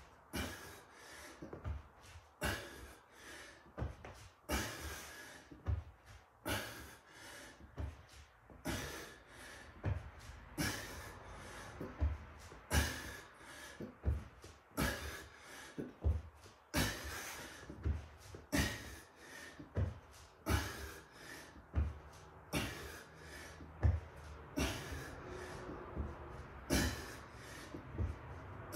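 A man breathing hard and rhythmically through sit-ups, with short, sharp, forceful breaths roughly once a second.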